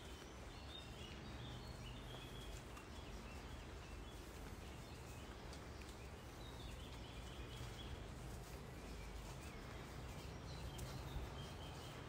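Small birds chirping now and then over a steady, faint rushing background, the kind of distant flowing-water or wind noise heard along a wooded riverside path.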